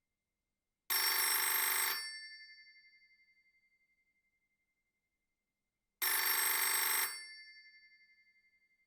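Telephone bell ringing: two rings about five seconds apart, each lasting about a second, with the bell tones fading away after each ring.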